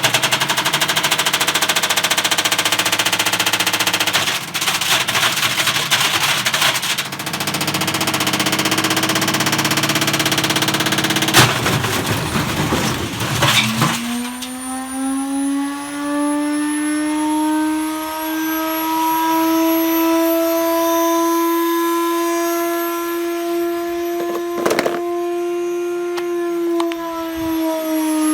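Indesit W133 front-loading washing machine spinning with a brick loose in its drum: the brick hammers the drum in a rapid, loud, machine-gun-like clatter. About 14 seconds in, the banging stops and a steady high motor whine takes over, its pitch creeping up and then dropping near the end.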